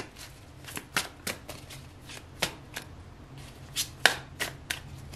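A deck of oracle cards being shuffled by hand: a string of irregular, crisp card clicks and slaps as cards drop against the deck.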